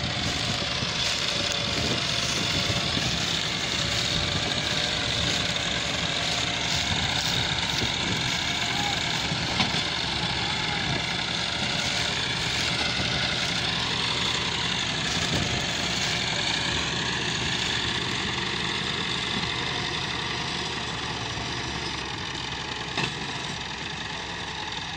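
Massey Ferguson 385 tractor's four-cylinder diesel engine running steadily under load as it hauls a fully loaded sugarcane trolley. It gets slightly quieter in the last few seconds.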